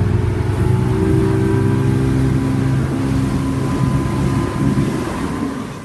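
Motorboat engine running steadily at speed, its pitch rising a little at the start, with wind buffeting the microphone.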